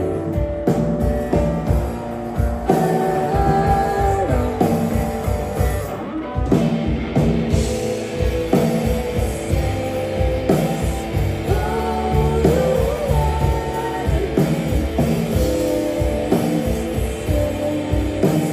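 Live rock band playing electric guitar, bass guitar and drum kit, with a sung vocal line over it.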